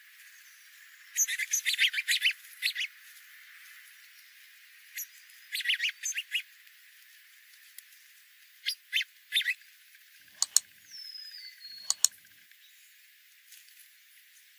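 Small birds chirping in three bursts of rapid, high, squeaky notes, followed by a few single chirps, two sharp clicks and a falling whistled call near the end.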